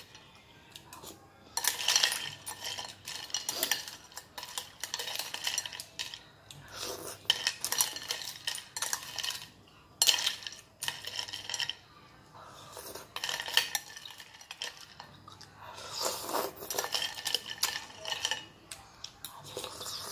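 A metal spoon stirring and scraping through an iced milky dessert in a glass bowl, clinking against the glass and the ice cubes in several spells with short pauses between.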